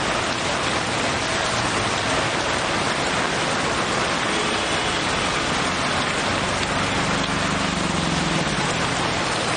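Heavy rain pouring down on a flooded street, a loud, dense, steady hiss. Toward the end a passing vehicle's engine adds a low hum for a couple of seconds.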